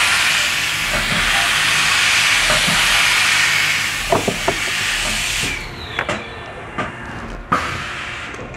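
CNC mill drilling a 3/4-inch through hole in an acrylic block, with a loud, steady hiss that cuts off sharply about five and a half seconds in. A few sharp clicks follow.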